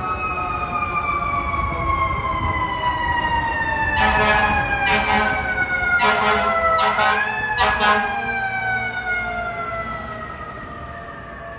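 FDNY fire truck's siren winding slowly down in pitch, rising briefly once before falling again. Between about four and eight seconds in it is cut across by five or six short, loud air-horn blasts.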